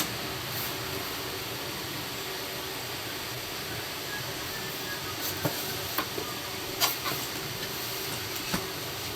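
Steady loud hiss throughout, with a few short clicks and rustles in the second half, typical of a cardboard box and its packing being handled.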